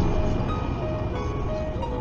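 A simple melody of short notes, changing pitch every fraction of a second, over steady road and engine noise from a car driving on a highway.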